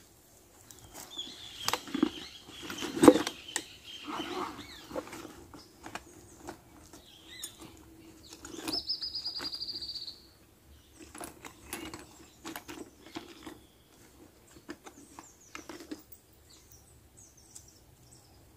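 Fishing tackle and a backpack being handled: rustling with scattered clicks and knocks, the loudest a sharp knock about three seconds in. A short, high, evenly pulsed trill lasting about a second and a half comes about nine seconds in.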